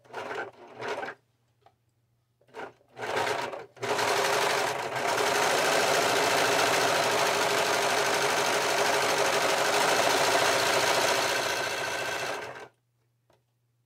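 Brother Lock serger (overlocker) stitching and trimming the raw edge of a fabric strip: two short bursts, then a steady run of about nine seconds that stops abruptly near the end.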